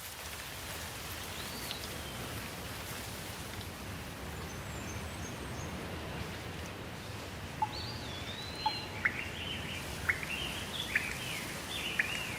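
Steady rain falling, with small birds chirping over it; the chirps are sparse at first and come thick and fast in the second half.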